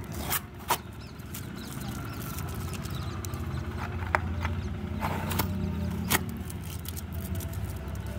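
Cardboard tripod box being handled and its end flap worked open: a few sharp clicks and taps of the card, over a low rumble that swells in the middle.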